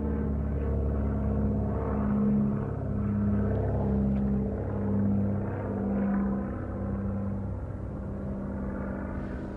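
Twin-propeller airplane flying overhead: a low engine and propeller drone with a throbbing tone that pulses about once a second. It is loudest a couple of seconds in, then slowly fades as the plane passes.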